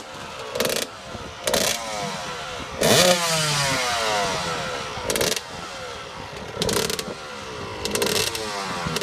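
Suzuki RM125 two-stroke motocross engine revved in quick throttle blips, each rising sharply and falling back, about six times. The biggest blip comes about three seconds in.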